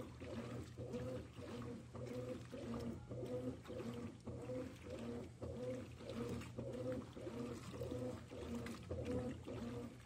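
Consul CWE13AB 13 kg top-load washing machine agitating a waterlogged comforter: the motor whirs in pulses about twice a second as the agitator swings back and forth, over a steady low hum and sloshing of soapy water.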